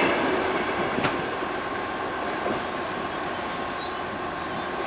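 Passenger train carriages rolling away on the rails as the train pulls out. The noise fades over the first couple of seconds, with a single knock about a second in and a thin high wheel squeal later.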